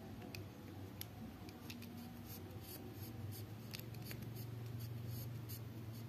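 Faint handwork on a small die-cast toy car: scattered light clicks and scratching over a low steady hum.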